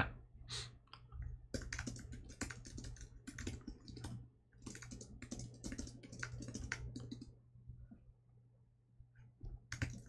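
Typing on a computer keyboard: quick runs of keystrokes for several seconds, thinning out after about seven seconds, over a faint steady low hum.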